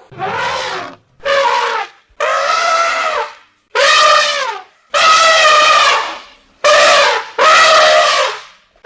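Elephant trumpeting: seven loud blasts in quick succession, each between about half a second and a second long, several bending down in pitch at the end.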